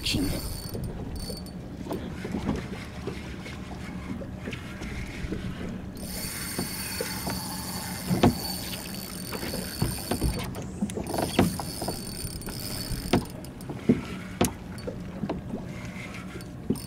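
Small fishing boat's motor running with a steady hum under wind and water noise, with a few sharp knocks here and there.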